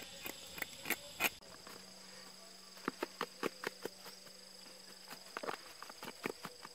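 Short, sharp clicks and taps from handling catfish: a knife working the fish on a stone, then salt shaken from a plastic bag over the fish in a metal basin. A steady high insect drone runs behind.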